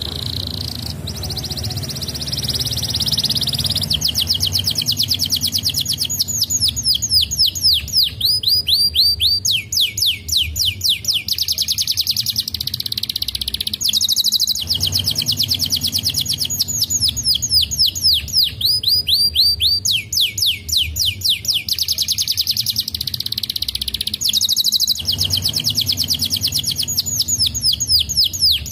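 Domestic canary singing a long, unbroken song of fast trills, each phrase a rapid string of repeated notes, switching to a new trill every few seconds.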